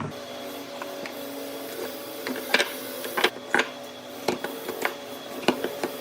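Workshop machine humming steadily while sharp knocks and clicks sound irregularly over it, about seven in all, the loudest clustered in the middle.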